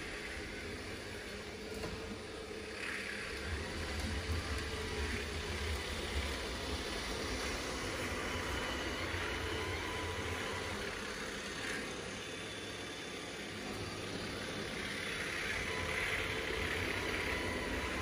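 Roborock S7 MaxV Ultra robot vacuum-mop running across a hard floor on a mopping pass over a spill, a steady low motor hum that grows a little louder near the end as the robot comes close.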